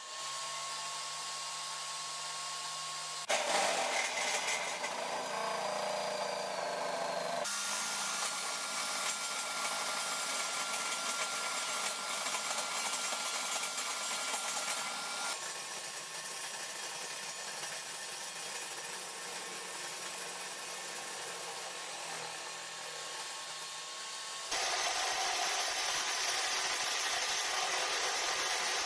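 Table saw and shop vacuum running, then from about three seconds in the saw blade cutting a spinning wooden rod into a dowel, a loud continuous cutting noise. The noise jumps abruptly in level and tone several times.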